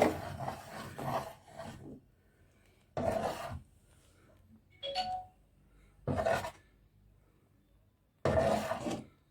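A spoon scraping around a pot as fenugreek is stirred into hot honey, in about five separate strokes with pauses between them, and a short ringing clink about five seconds in.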